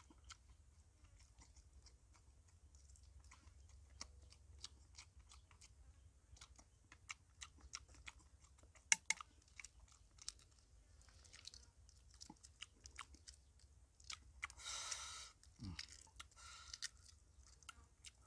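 Faint crackling of eggshell being cracked and picked off cooked eggs by hand: many small, irregular clicks, with a brief louder rustle about fifteen seconds in.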